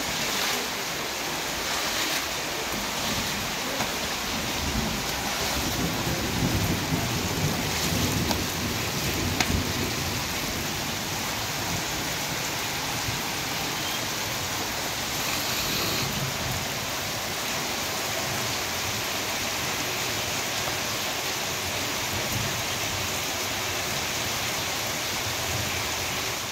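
Heavy rain pouring steadily, drops splashing into puddles on a concrete yard.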